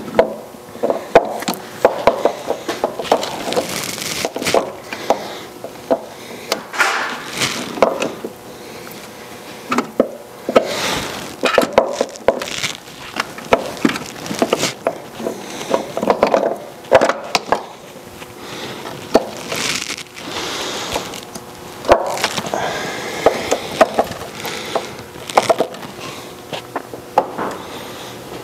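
Irregular clinks, knocks and scraping of metal parts being handled inside a Monarch lathe's cast-iron headstock gearbox, as a thin copper oil line is snaked in among the gears.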